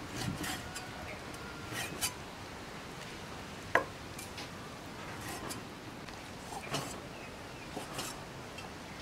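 A cleaver slicing raw beef on a wooden chopping board: a handful of scattered knocks and light clicks as the blade comes down on the board, one sharper and louder a little before the middle.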